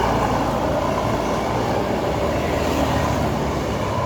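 A large bus passing close by: a steady rumble of engine and tyres, with no horn sounding.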